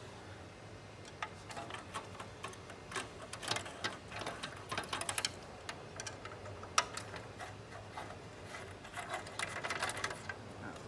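Irregular light clicks and taps of the printer's cover screws being undone by hand and the panel being handled, over a faint steady low hum.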